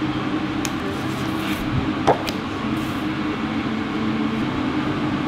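Restaurant background noise: a steady hum with a few brief clatters, the loudest a short sharp sound about two seconds in.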